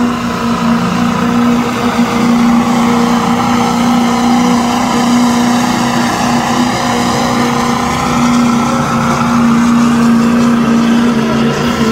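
Diesel pickup truck engine running hard at high, fairly steady revs while pulling the sled at a truck pull. The pitch sags slightly midway, then climbs again.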